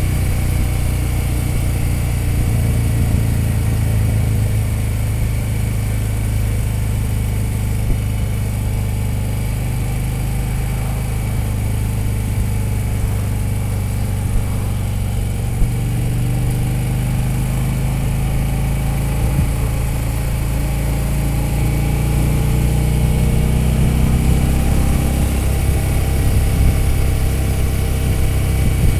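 Touring motorcycle's engine running steadily under way, a low rumble heard from the saddle, its pitch drifting slightly up and down with road speed.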